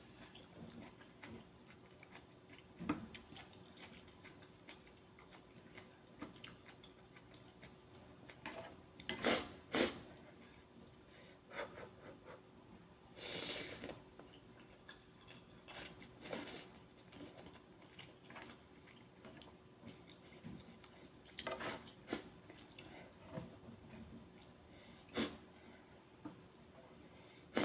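Close-miked eating of spicy Thai sukiyaki noodles: quiet chewing broken by scattered short, sharp slurps and sniffs, the sniffles brought on by the chilli heat. The loudest are a pair about nine seconds in.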